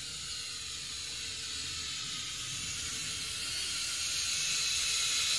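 Syma X5C-1 toy quadcopter's small motors and propellers whining as a steady high hiss with faint steady tones, growing gradually louder as the drone flies closer.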